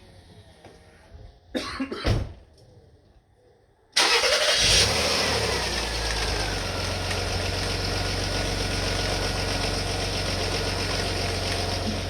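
Two short knocks, then about four seconds in the Rover KV6 V6 engine fires after a brief crank on its first start after an oil change; the revs flare up and fall back into a steady idle.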